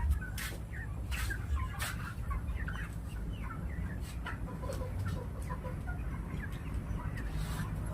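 A flock of chickens clucking, many short overlapping calls, with a few sharp clicks among them.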